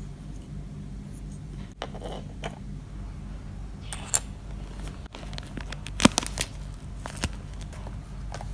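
Small plastic miniature pieces handled and set down on a wooden tabletop: scattered light clicks and taps, with a few sharper knocks about six seconds in, over a steady low hum.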